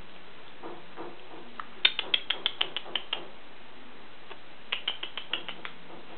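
Blue-and-yellow macaw making quick runs of sharp clicks, about seven a second: one run about two seconds in and a second one about five seconds in.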